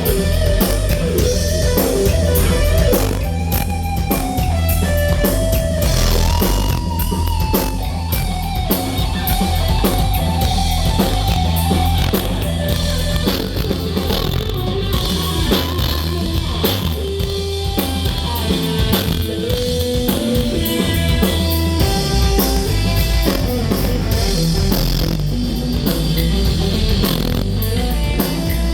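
Rock band playing an instrumental section: an electric guitar lead of held, bending notes over a drum kit and bass.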